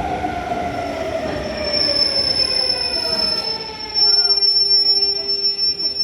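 Electric train braking into the station: the motor whine falls in pitch as it slows, and a steady high-pitched brake squeal sets in about two seconds in.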